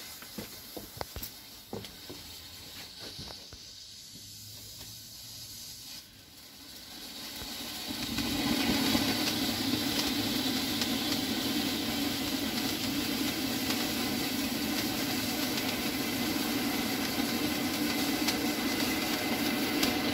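Star Fountain ground fountain firework: the lit fuse sputters with scattered small clicks and crackles for about six seconds, then the fountain catches and builds over a couple of seconds into a steady, loud hiss of spraying sparks.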